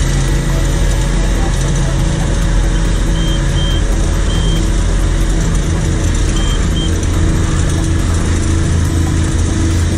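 Cat AP655F tracked asphalt paver running steadily while paving, with a deep, continuous engine note. A few short high beeps sound in the middle.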